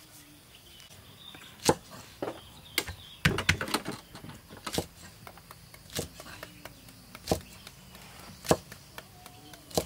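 Kitchen knife chopping yardlong beans on a wooden chopping block: sharp single chops at an uneven pace, roughly one a second.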